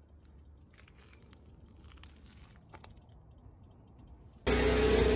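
Near silence with a few faint ticks. About four and a half seconds in, the two-stage snowblower's small engine cuts in abruptly, running loud and steady. It is running too fast even at the lowest throttle setting, which the owner wonders is a runaway throttle.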